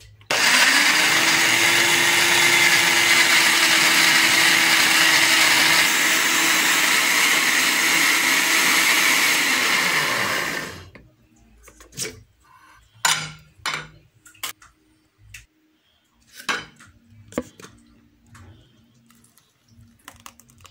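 Countertop electric blender starting up, running for about ten seconds while it purées tomatoes and capsicum, and then winding down, its motor pitch rising as it spins up and dropping as it stops. Afterwards a few short knocks follow as the jar is handled.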